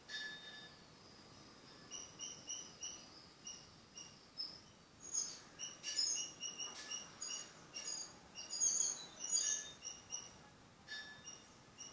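Birds chirping: short high chirps repeating, sparse at first and then busier and louder from about the middle onward.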